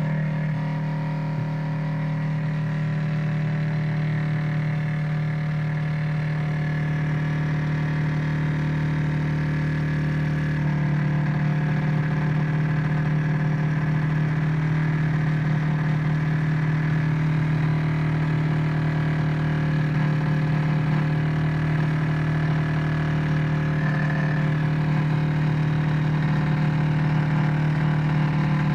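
Refrigerator running with a steady, pitched mechanical hum. It becomes slightly louder about ten seconds in.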